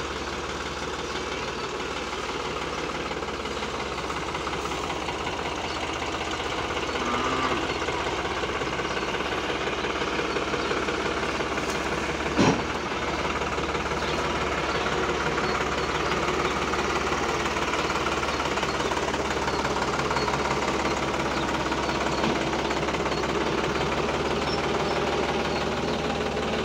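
New Holland farm tractor's diesel engine running steadily at idle. A single sharp click about halfway through.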